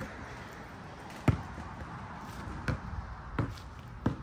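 A basketball bouncing on a hard court: four separate thuds, the first the loudest, at uneven spacing, about a second apart and then faster.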